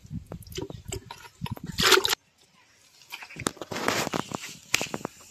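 Potatoes being rubbed clean by hand in a plastic bucket of water: splashing and knocks, loudest in a splash about two seconds in. After a short break, scattered clicks and a rustling noise follow.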